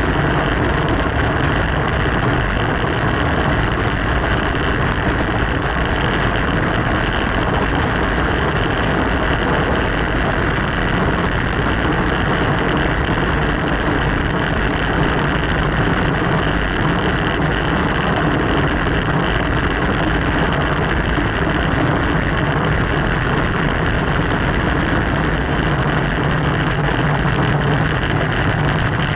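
Steady rushing noise of wind and road on a camera mounted on a racing bicycle while riding.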